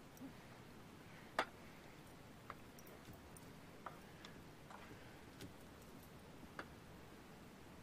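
Spoon clicking and tapping against the inside of a metal canteen cup while pasta is stirred: faint, irregular clicks, a louder one about a second and a half in.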